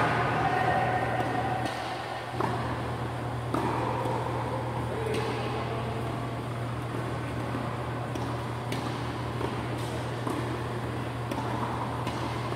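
Steady hum of the large ventilation fans in an indoor tennis hall, with a few faint knocks scattered through it.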